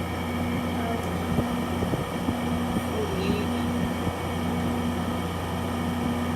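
Frigidaire 5000 BTU window air conditioner running on high cool, a steady hum of compressor and fan, while it blows cold air at about 48 to 50 degrees.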